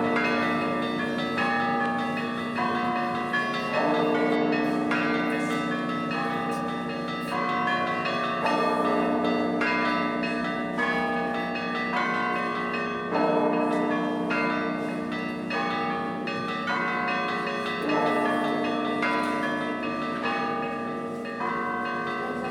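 Russian Orthodox church bells ringing: several bells of different pitch struck in turn, their tones ringing on and overlapping, in a pattern that repeats about every four and a half seconds.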